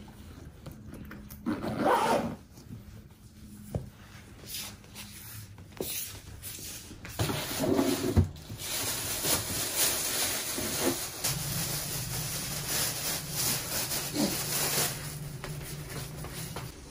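Thin plastic bag rustling and crinkling for several seconds as it is pulled from a kitchen drawer and carried, after a few knocks of handling near the start.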